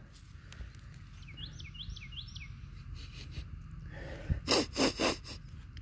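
A man sniffing three times in quick succession close to the microphone, smelling a plant's leaves. Earlier, a bird calls a short run of four rising chirps.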